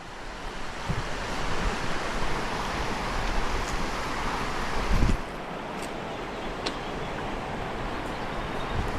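Steady rush of flowing river water, with wind rumbling on the microphone and a brief low thump about five seconds in.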